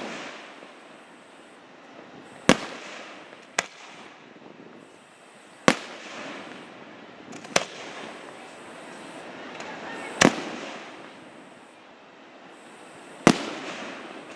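Aerial fireworks shells bursting with about six sharp booms a couple of seconds apart. A steady noisy hiss, the sound of the burning display, fills the gaps between the booms.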